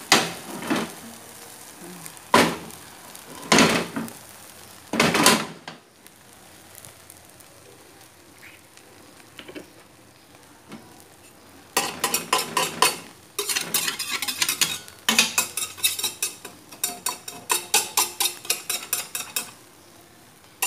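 Metal clattering of a rectangular non-stick frying pan and metal spatula while a thin egg crepe cooks. There are four separate knocks in the first five seconds, then a quieter stretch with faint sizzling. From about twelve seconds in comes a long run of quick, repeated clattering and scraping.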